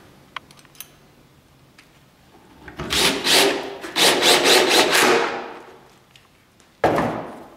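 Cordless drill-driver driving two screws into the bottom pocket holes of a wooden egg-hutch wall: two short bursts of whirring and grinding about a second apart. Near the end comes a single sharp wooden knock.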